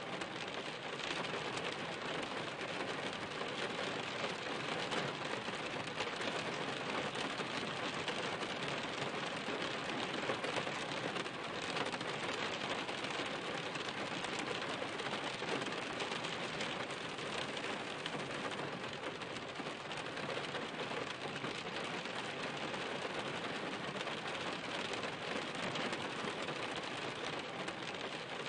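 Steady rain falling on a surface, an even, unbroken hiss of many drops with no let-up.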